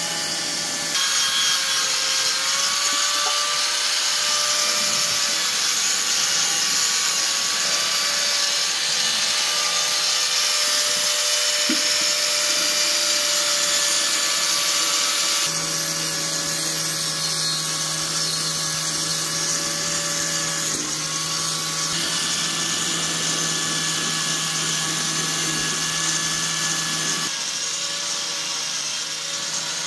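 Hand-held angle grinder running steadily against a metal part, a loud continuous whine over a harsh hiss. Its pitch dips briefly a couple of times.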